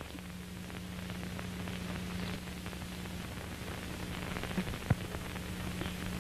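Crackling static with a steady low hum, dotted with small clicks and pops, and one sharper pop about five seconds in.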